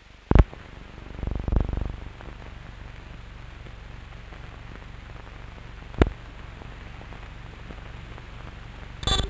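Old cine film soundtrack running with no programme sound: a steady hiss broken by pops and crackles. There is a sharp pop just after the start, a rougher crackling patch around a second and a half in, a single click about six seconds in, and another crackling burst near the end.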